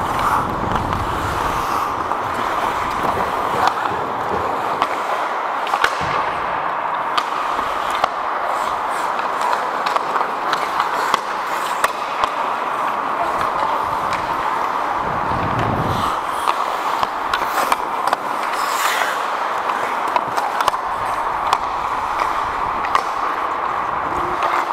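Ice skate blades scraping and gliding on rink ice during hockey play, with frequent sharp clicks of sticks and puck and a low thud partway through.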